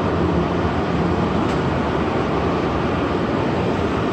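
Steady rumble and hiss inside the car of an automated people mover as it runs into a station.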